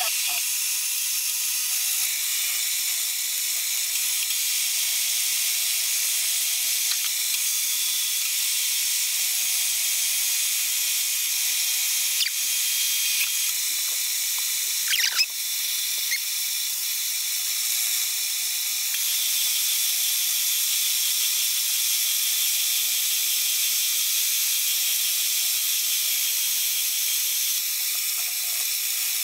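A milling machine's end mill cutting a metal block, a steady high-pitched hiss from the cut, with a single short knock about fifteen seconds in.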